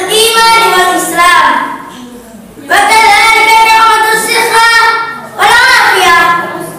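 A boy's voice chanting Arabic in a drawn-out, melodic style, with long held notes. There are three phrases, with a pause about two seconds in and a short break just past five seconds.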